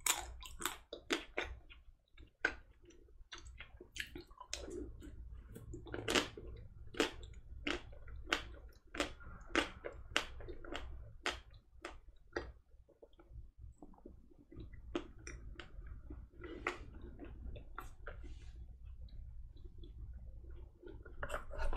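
Close-up chewing of a white-chocolate-coated vanilla ice cream bar: crisp little cracks as the chocolate shell breaks, about one or two a second, between soft wet mouth sounds.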